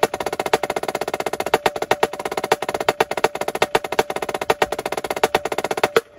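Yamaha marching snare drum played with sticks: fast rudimental strokes and rolls with loud accents, the closing bars of a rudimental snare solo. The playing stops on a final stroke about six seconds in, leaving a short ring of the drum.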